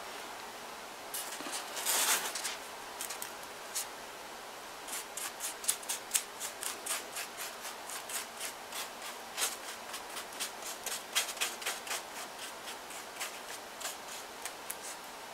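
Newspaper strips crinkling and rustling under the fingers as they are pressed and smoothed onto a paper mache figure: a louder crumple about two seconds in, then a long run of short crisp rustles.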